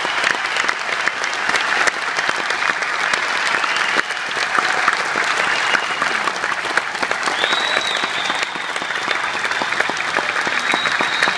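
Large arena audience applauding: dense, steady clapping from many hands.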